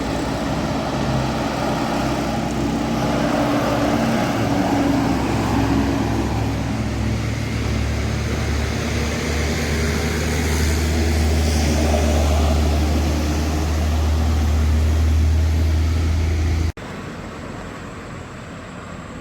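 Heavy diesel bus engine running close by with a steady low note, its road and tyre noise swelling twice as it passes. The sound cuts off suddenly about seventeen seconds in, leaving quieter traffic noise.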